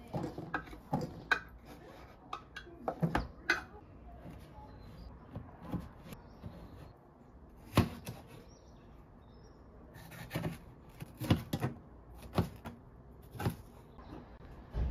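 Kitchen prep clatter: a metal spoon knocking and scraping against a tin can and a metal baking pan while corn is scooped in. Later a knife cuts on a plastic cutting board, giving clusters of short taps and knocks.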